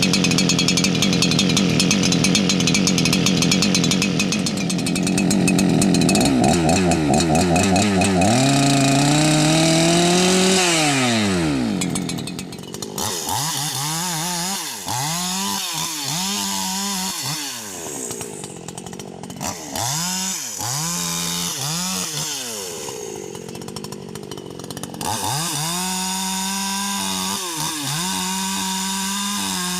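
Husqvarna 288 XP two-stroke chainsaw running at full throttle through a cut in rubberwood for about ten seconds. It then winds down to idle and is revved up and let drop several times in short throttle blips.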